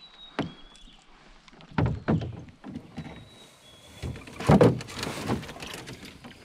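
Knocks and thumps against a canoe as a landing net holding a smallmouth bass is brought aboard and the fish is handled, with the loudest clattering burst about four and a half seconds in.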